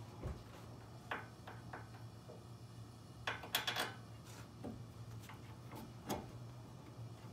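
Scattered light metallic clicks and taps of hand work on a truck's front brake caliper as its mounting bolts are started by hand. A soft thump at the start, single clicks about a second in and near the end, and a quick cluster of clicks about halfway through, the loudest part.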